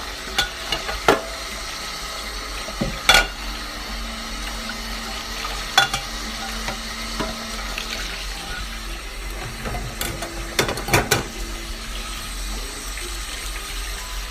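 Dishes being washed by hand at a sink: a steady rush of running tap water, with dishes knocking and clattering now and then, the loudest a sharp clatter about three seconds in and a pair of knocks near the eleventh second.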